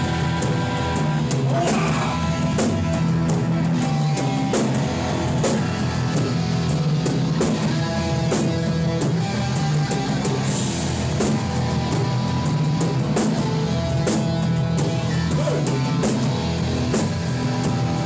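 Hardcore punk band playing live: distorted electric guitars and bass chugging chords over a steady drum-kit beat, with no vocals.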